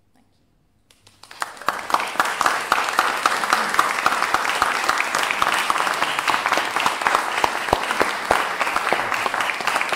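Audience applauding: it starts about a second in, swells quickly to full, then holds as steady, dense clapping.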